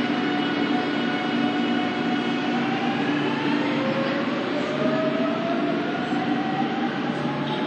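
Electric train pulling away from the platform, its traction motors giving a whine that rises slowly in pitch over a steady rumble as it accelerates.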